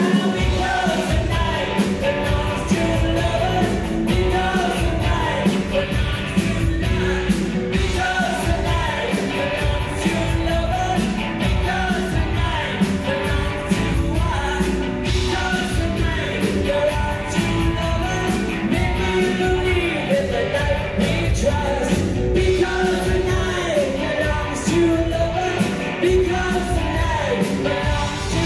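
Live rock band playing a song: a woman singing lead over electric guitars, bass guitar and drums.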